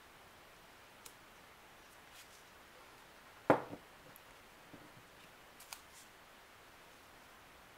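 Hands handling a glass jar wrapped in a paper sleeve: small clicks and light rustles, with one sharp knock about three and a half seconds in.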